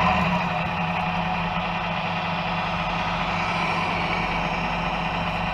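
Sound unit of a radio-controlled scale model tractor truck playing a steady diesel engine running sound.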